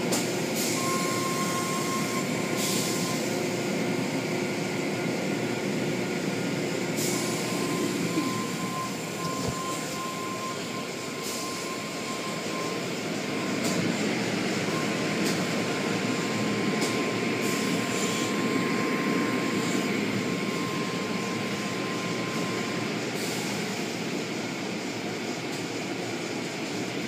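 Automatic tunnel car wash running: a steady rush of spraying water and cloth brushes over machinery. A thin, steady whine holds through most of it with short breaks, and a few brief swishes stand out.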